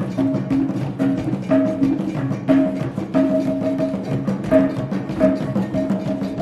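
Traditional eastern Nigerian (Igbo) percussion music for a dance: pitched drums played in a busy, steady rhythm with sharp wood-block-like clicks.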